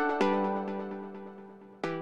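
Intro jingle music in a plucked-string timbre: a note plucked just after the start rings out and slowly fades, and another is plucked near the end.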